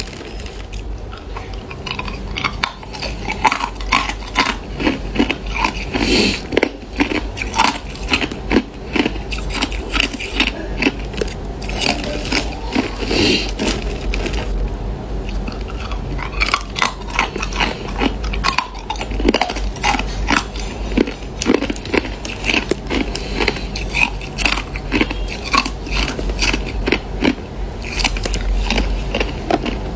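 Crushed ice crunching and crackling in a dense run of sharp clicks, with a plastic zip-lock bag crinkling as a hand rummages through the ice.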